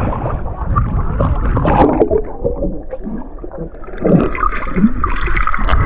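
Sea water sloshing and gurgling around a camera dipped below the surface, heard muffled as through an underwater housing, with a louder bubbling splash about four seconds in.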